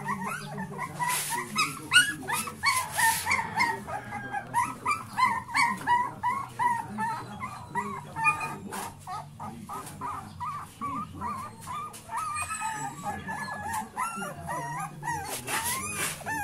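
Young puppies crying, many short high-pitched whimpers and squeals overlapping several times a second, with a few longer rising-and-falling whines near the end.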